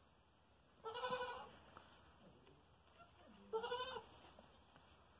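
Goat bleating twice: a call about a second in and a shorter one near four seconds.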